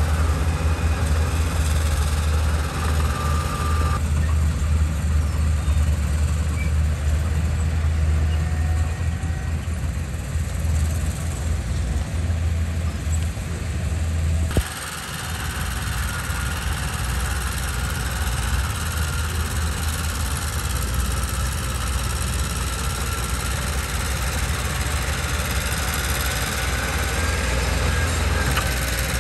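Diesel engine of a Mitsubishi BD2G bulldozer running steadily as it works. About halfway there is a sharp click and the engine sound changes abruptly.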